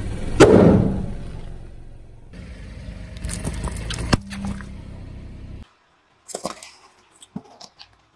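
A car tyre rolling over small objects and crushing them: a blue rubber stress ball gives way under the tyre with a loud burst about half a second in. After that come sharp cracks, then short crunches of small brittle things being flattened against the pavement.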